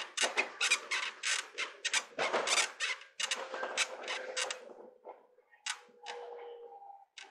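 Electric commuter train slowing into a station. First comes a fast run of scraping, creaking strokes, about five a second, then a steady, slightly falling brake squeal.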